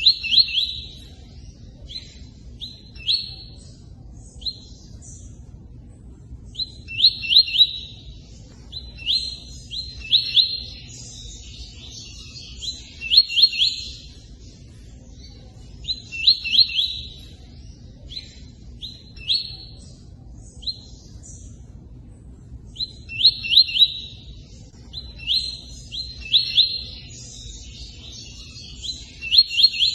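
Tui-tui bird singing in short bursts of quick, bright chirps, with pauses between phrases, over a steady background of running water.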